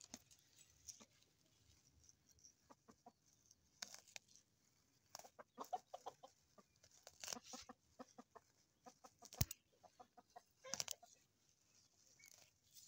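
Chickens clucking in short bursts, mixed with close rustling and snapping of herb stems being picked by hand.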